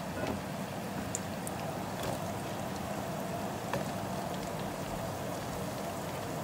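Carrot pieces frying in hot cooking oil in a nonstick pan: a steady sizzle with a few sharp pops and crackles scattered through it.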